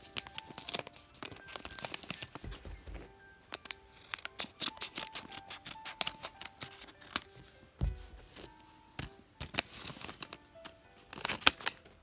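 Packaging being handled and opened: crinkling, scratching and small clicks, with a couple of low thumps, over background music with a simple melody.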